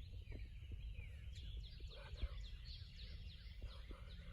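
Faint songbirds chirping, many quick high downward-sweeping notes, over a steady low rumble.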